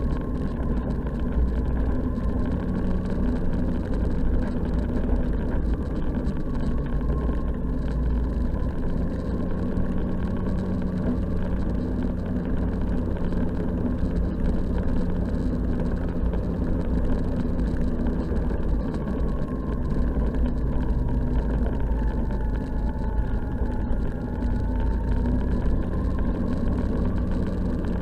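Snowmobile engine running steadily while the sled is underway, with a constant low rumble; the engine note dips and then rises again over the last several seconds.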